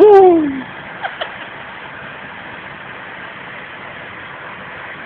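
A person's voice sliding down in pitch for about half a second at the start, a couple of faint clicks about a second in, then steady background noise.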